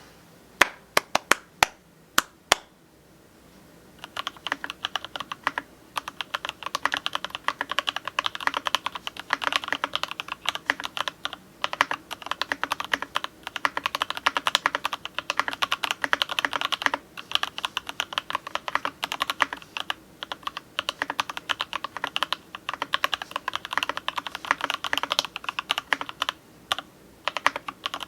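Keychron K6 aluminum-frame mechanical keyboard with lubed Box Cream linear switches, foam dampening and MT3-profile keycaps being typed on. A few separate keystrokes come first, then fast continuous typing from about four seconds in, with short pauses.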